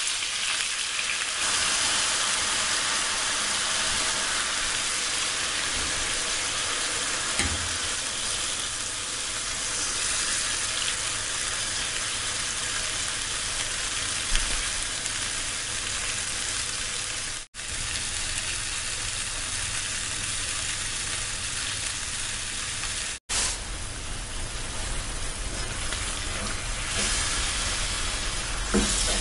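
Chicken leg quarters sizzling in hot oil in a frying pan, a steady high hiss of pan-frying. It breaks off for an instant twice, past the middle.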